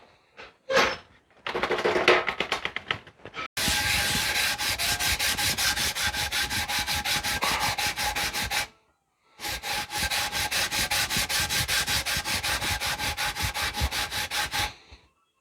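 A knife handle scale rubbed back and forth by hand on sandpaper laid flat, flattening its face: quick, even strokes, about five a second, in two long runs with a short pause about halfway through.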